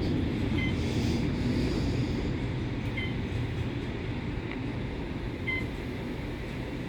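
CN Tower elevator cab running up its shaft: a steady low rumble and rush of air that slowly eases as the car slows near the top. Three short high chirps sound about two and a half seconds apart.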